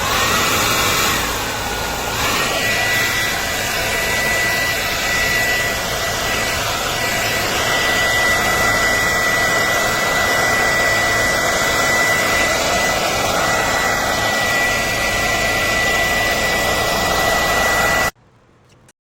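ANNE BETTY 1800W ionic hair dryer running, a steady rush of air with a high motor whine. The whine dips in pitch and recovers about two seconds in, then holds steady until the dryer cuts off suddenly near the end.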